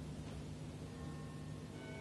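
Soft music coming in about a second in, a few held notes, over the steady low hum and hiss of the recording.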